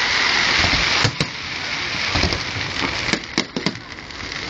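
Fireworks display: a steady hissing crackle with sharp pops about a second in and several more around three to four seconds in.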